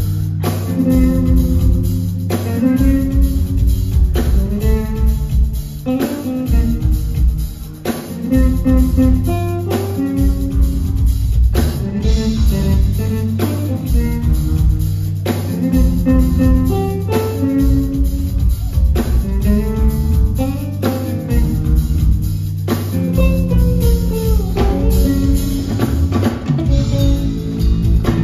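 Live band music: two bass guitars and a drum kit playing a repeating, steady groove, heard from the audience in a theatre.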